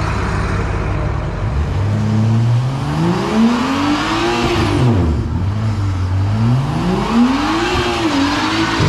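Car engine driven hard: after a steady low note it revs up, climbing steeply in pitch, drops away about halfway through, then revs up again.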